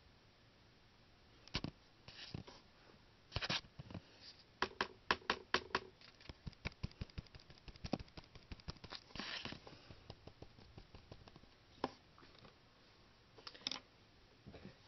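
Light taps and clicks of a paintbrush dabbing chalk pastel onto a small piece of polymer clay. They come in quick runs of several a second through the middle and thin out towards the end.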